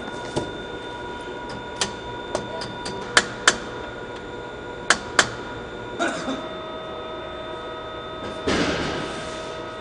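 Sharp metal clanks and knocks from portable generators being assembled by hand, about seven over the first five seconds, over a steady machinery hum. Near the end comes a louder scraping rush that fades over about a second.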